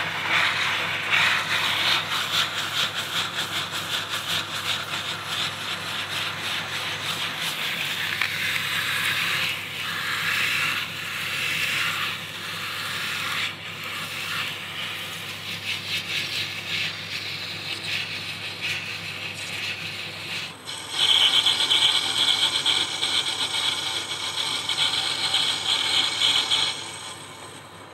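Abrasive cloth rubbing against a brass handle spinning in a Myford lathe, a steady sanding hiss over the lathe's faint hum. About 21 s in it turns louder and brighter, a harsher scrape with steady ringing tones, and it drops away near the end.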